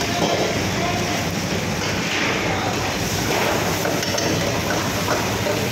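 Commercial kitchen gas burner running on a high flame, a steady rushing noise, with chopped garlic and onion sizzling in ghee in a steel pan.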